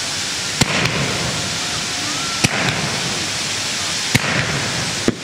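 Ground fountain fireworks hissing steadily as they spray sparks, broken by four sharp bangs about every one and a half to two seconds.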